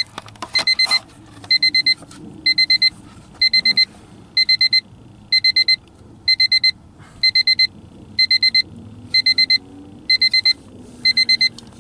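1997 Honda Civic's dashboard warning buzzer, a steady electronic beeping in quick groups of about four beeps, repeating roughly once a second. It is the reminder chime a Civic gives with the driver's door open and the key in the ignition.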